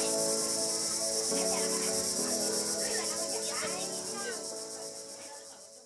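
Crickets chirping in a steady, high-pitched chorus, with fainter warbling chirps and held tones beneath it; the whole sound fades out near the end.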